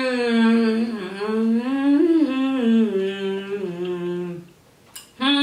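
A woman humming with her mouth closed, a slow wandering tune that glides and steps downward in pitch. The humming breaks off about four and a half seconds in, a single short click follows, and the humming starts again just before the end.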